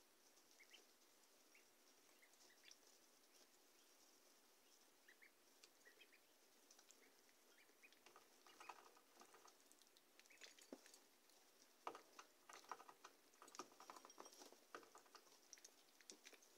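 Faint pattering and clicking of week-old Pekin, Rouen and Swedish Black ducklings moving through wood-shavings bedding and pecking at the feeder and waterer, getting much busier from about halfway. A few soft peeps come through as well.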